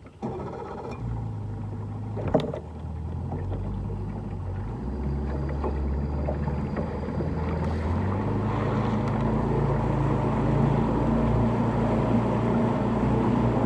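Boat's outboard motor running as the boat is driven in tight circles, a steady low hum that grows gradually louder. There is a sharp knock about two seconds in.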